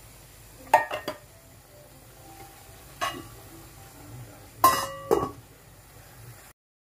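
Stainless steel cookware clinking: a few sharp metallic knocks, the loudest group with a brief ring about five seconds in as the domed steel lid is set on the pan.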